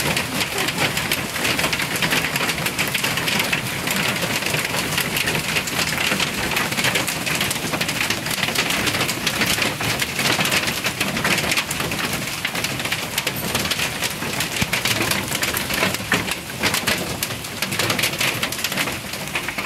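Heavy hail falling steadily, a dense, continuous rattle of countless hailstones striking the ground and nearby surfaces.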